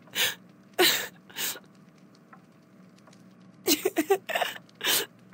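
An animated character's voice crying 'no' over and over in short bursts: three cries, a pause of about two seconds, then a quicker run of several more.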